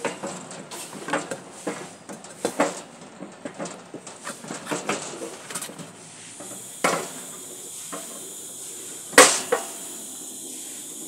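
Irregular knocks and scrapes from a wooden board being handled on a steel-tube engine-mount frame. After about six seconds a steady hiss sets in. About nine seconds in there is a sharp double knock, the loudest sound.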